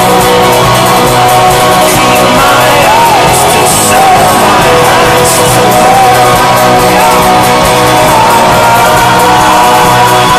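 Folk-rock band playing live and loud, with strummed acoustic guitar and electric guitar and a man's voice singing over them.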